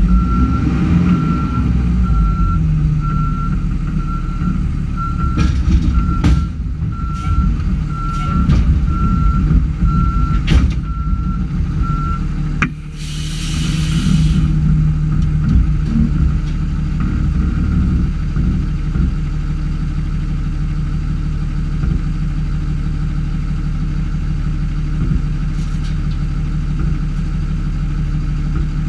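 Yard tractor (utility tractor rig) diesel engine running steadily in the cab, with its reversing alarm beeping evenly, about one and a half beeps a second, until about twelve seconds in, along with a few sharp clicks. About thirteen seconds in comes a short hiss of released air, and then the engine runs on alone.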